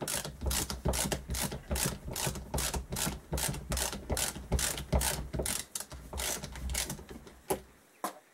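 Socket ratchet clicking in quick repeated strokes, about three or four a second, as a freed 10 mm bleed nipple is unscrewed from a motorcycle brake caliper. The strokes stop about seven seconds in, and two separate clicks follow near the end.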